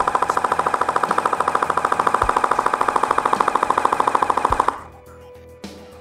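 Airsoft rifle firing a long full-auto burst: a fast, even stream of shots that stops about three-quarters of the way through.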